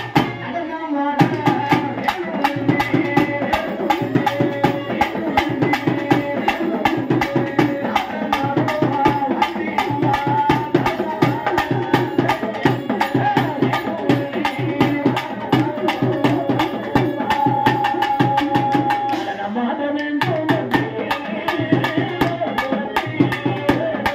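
Villu paattu ensemble playing a fast percussion-led passage: the long bow hung with brass bells is beaten in rhythm, with a clay pot drum, drums and harmonium. The playing breaks off briefly just after the start and again about twenty seconds in.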